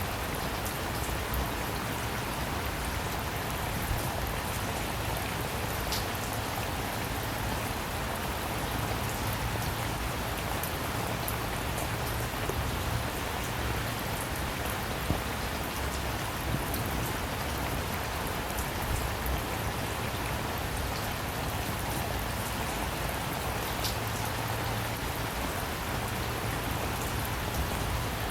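Steady rainfall, a dense even hiss with scattered drops ticking on a surface.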